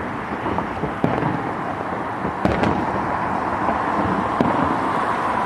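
Fireworks display going off: a steady crackling rumble of bursts, with several sharp bangs standing out.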